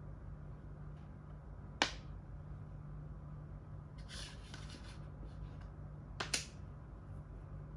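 Plastic makruk (Thai chess) pieces clicking against the board and each other as moves are made: a sharp click a couple of seconds in, a short clattering patch about four seconds in, and two quick clicks a little after six seconds, over a low steady hum.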